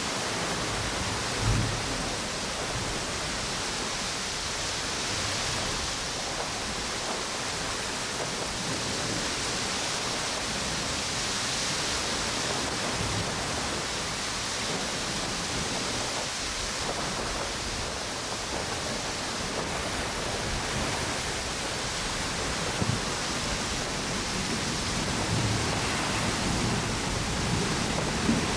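Steady rushing of strong wind through palm trees with ocean waves washing on a beach, with a few brief low thumps of wind gusts along the way.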